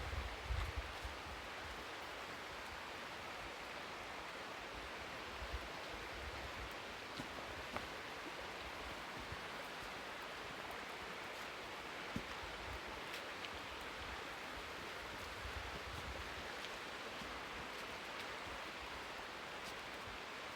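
Steady rushing of a waterfall, an even hiss of falling water, with occasional low rumbles and a few faint clicks.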